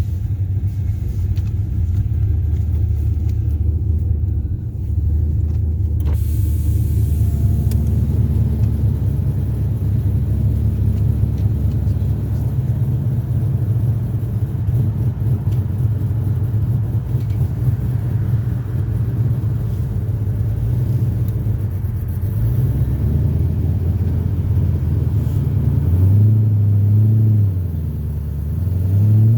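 2004 Pontiac GTO's LS1 V8, breathing through Kooks headers and a full aftermarket exhaust, running with a steady deep rumble. Late on its pitch rises and dips once, then climbs steadily as the car accelerates.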